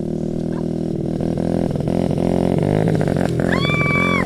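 Honda CRF50 dirt bike's small single-cylinder four-stroke engine running under throttle, its pitch rising and falling as it is ridden. Near the end a brief high-pitched cry sounds over it.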